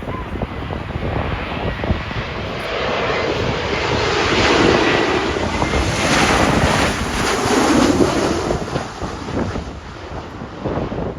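Jet airliner passing low overhead on final approach to land. Its engine noise swells, peaks about four to eight seconds in with a thin whine, then fades, while gusty wind buffets the microphone throughout.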